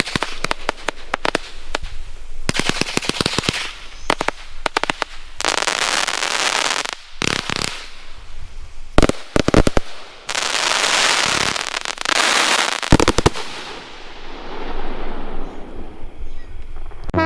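PyroMax 'In Your Face' 138-shot compound firework cake firing: quick runs of sharp shots alternate with long spells of crackling from the crackle horsetail effects. The last crackle fades away near the end.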